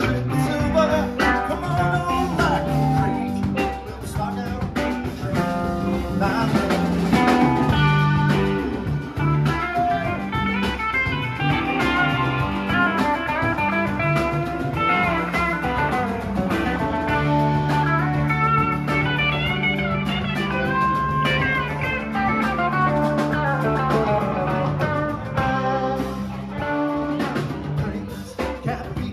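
Live rock band playing: electric guitars, bass, drum kit and conga-type hand drums, with a guitar melody line over a steady groove.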